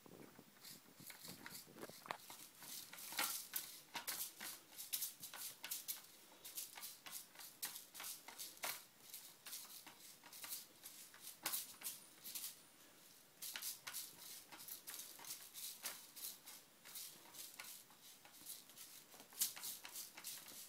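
A kitten batting at a plastic track toy with a fluffy mouse on a spring wire, making faint, irregular clicks and taps that come in quick flurries.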